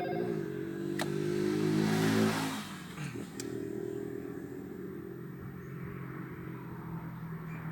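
A motor vehicle engine running steadily, with a brief swell of noise about two seconds in.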